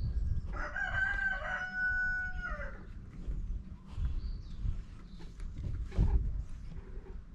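A rooster crowing: one drawn-out call of about two seconds that holds its pitch and drops at the end. A dull knock comes about six seconds in.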